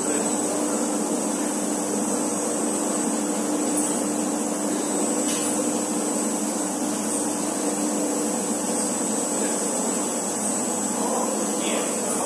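Steady machinery drone of a big-bag filling line, an even hiss with a low hum that drops away about two-thirds of the way through and a faint high whine.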